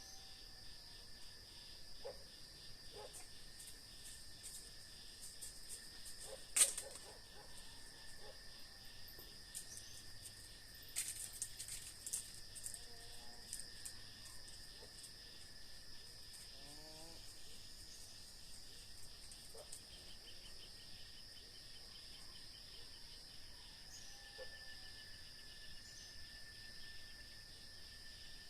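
Dusk countryside insect chorus: crickets trilling steadily at several pitches. Scattered faint short calls sound over it. A sharp click comes about a quarter of the way in, and a brief patch of crackling comes a few seconds later.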